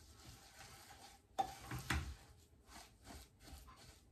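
Wooden spoon stirring and scraping a sticky sesame seed mixture in a stainless steel pot, with sharper knocks of the spoon against the pot, two of them close together about a second and a half in.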